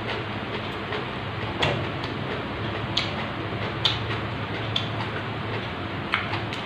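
Close-up chewing of crisp raw vegetables, raw winged bean: several sharp crunches and mouth clicks about a second apart over a steady low hum.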